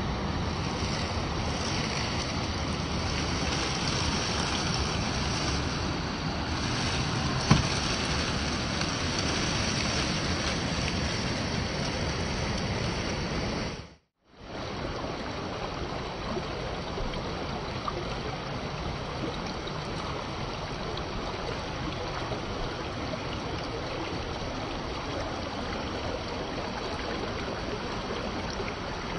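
Rushing water of a waterfall and stream, a steady, even noise, with one sharp click about seven seconds in. The sound drops out completely for a moment about halfway through.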